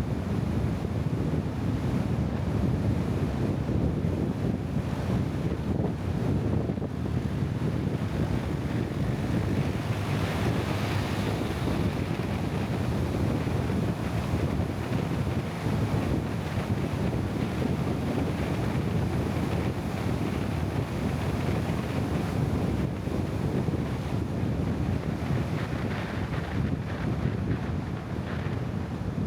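Wind buffeting the microphone in a steady low rumble, over rushing water from a bamboo raft moving along the river. A brighter hiss rises briefly about ten seconds in.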